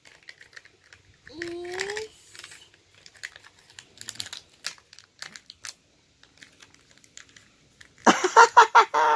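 Light plastic clicks and crinkles as a child's fingers work open the small plastic toy capsule from a surprise egg and handle its wrapper. A child's short vocal sound comes about a second in, and a child's voice breaks in loudly near the end.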